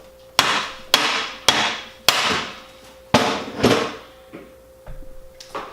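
Hammer blows tapping a bearing back into the vintage Milwaukee drill's housing: four sharp knocks about half a second apart, then a short pause and two more, each ringing briefly.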